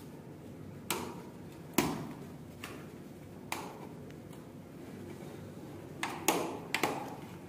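Wardrobe pipe poles knocking and clicking into plastic joint connectors as they are pushed together by hand: about eight sharp, irregular taps, the loudest about two seconds in and several close together near the end.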